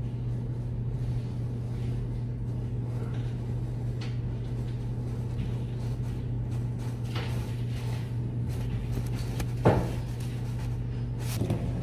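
Steady low room hum with faint handling clicks, and one sharp knock about ten seconds in, followed by a softer one shortly after.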